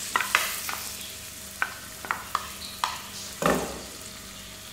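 Chopped onion sizzling as it goes into hot oil in a pan, with a run of sharp taps as a spatula scrapes it out of a glass bowl, and a louder knock about three and a half seconds in.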